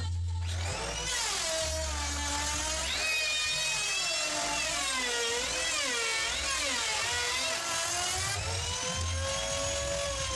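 Handheld electric wood router (trimmer) cutting along the edge of a wooden board: a high motor whine that comes up about a second in, its pitch dipping and rising again and again as the bit bites into the wood.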